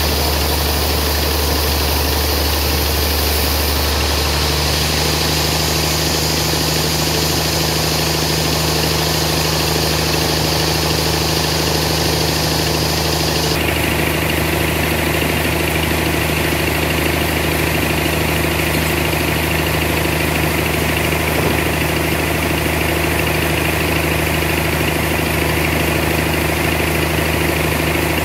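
Horizontal band sawmill running steadily, a continuous machine drone whose tone shifts twice, about four seconds in and again about thirteen seconds in.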